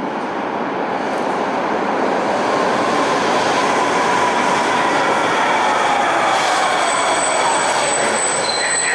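Newark Light Rail car (Kinki Sharyo LRV) pulling into an underground station. Its rumble grows louder as it approaches and runs along the platform, with a whine that falls in pitch as it slows. A thin high squeal from the wheels joins in near the end.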